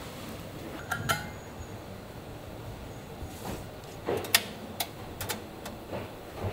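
Scattered sharp knocks and clatters of hard objects over a steady background noise: two about a second in, then a quick irregular cluster a few seconds later.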